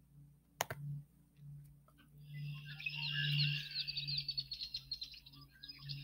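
Recorded red-winged blackbird song played back from a computer. A mouse click comes about half a second in, then from about two seconds in a run of fast, high trilled notes.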